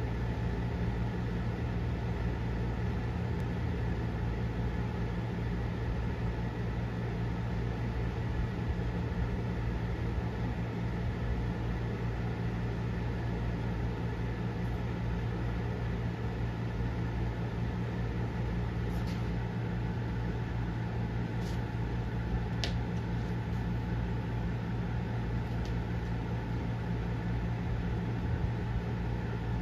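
Steady low mechanical hum that holds at one level throughout, with a few faint light clicks about two-thirds of the way through.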